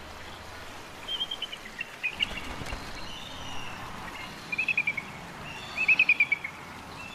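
Bald eagle calling: four short runs of quick, high piping notes, the later two louder, over steady faint background noise.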